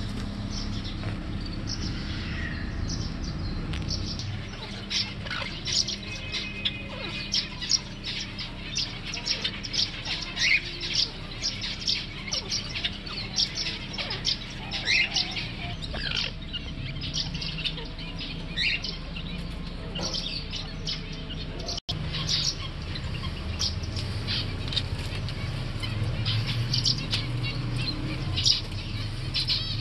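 Aviary of small caged birds, finches among them, chirping constantly in many short, high, overlapping chirps, with a steady low hum underneath.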